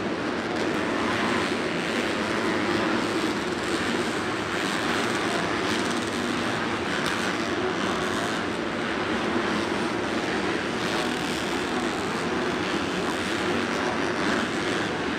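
Several supercross motorcycles (250-class four-strokes) running around the track, their engines blending into one steady drone.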